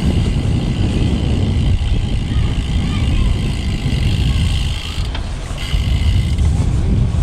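Wind buffeting the microphone of a moving road bike, a heavy low rumble with a steady hiss above it that drops out briefly about five seconds in.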